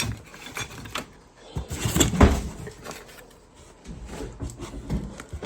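Handling noises: knocks, clicks and rustling as parts are set down and picked up, with the loudest knock about two seconds in.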